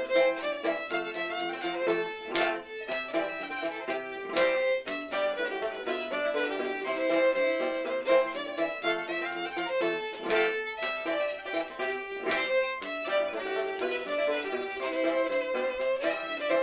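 Background music: a fiddle tune of bowed notes changing in quick succession.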